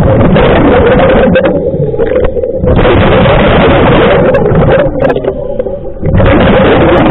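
Scuba regulator heard underwater: three long rushing, bubbling exhalations about three seconds apart, with quieter breaths between them and a steady hum underneath.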